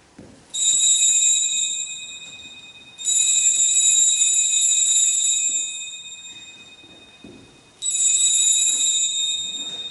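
Altar (sanctus) bell rung three times: about half a second in, about three seconds in and near the end, each a bright, high ring that dies away over a few seconds. It marks the consecration and elevation of the host in the Eucharistic prayer.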